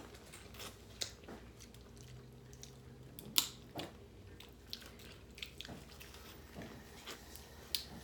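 People eating a seafood boil close to the microphone: chewing and mouth sounds with scattered sharp clicks, the loudest about three and a half seconds in.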